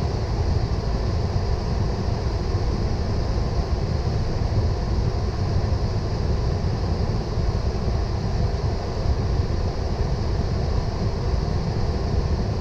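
Steady rumble and hiss inside a Boeing 777 flight deck while taxiing, heaviest in the low end, with no distinct events.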